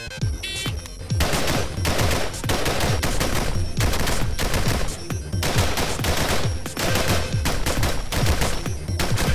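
AR-15 rifle firing fast strings of shots, several a second, growing dense about a second in.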